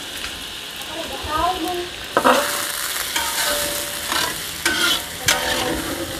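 Metal spatula stirring and scraping around a wok of sautéed chili, shallot and garlic with water just added, over a steady sizzle. Several sharp clacks of the spatula against the wok come from about two seconds in.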